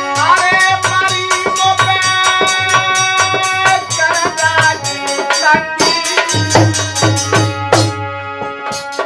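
Hindi folk bhajan: a man sings over a harmonium, with a dholak drum keeping a steady beat.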